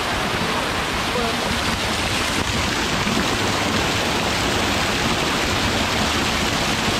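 A small waterfall pouring and splashing steadily onto rocks and a pool, heard close up.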